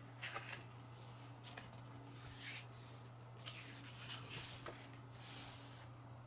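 Faint rustling of paper as photobook pages are handled and turned: several soft swishes a second or so apart, over a steady low hum.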